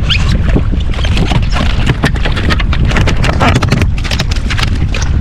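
Strong wind buffeting the microphone in a heavy, steady rumble. Wind-driven water chop slaps against a jet ski's hull in many short, sharp knocks and splashes.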